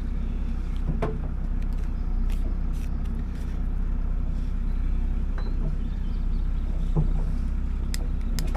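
Boat engine idling steadily, with a few light clicks and knocks about a second in and again near the end.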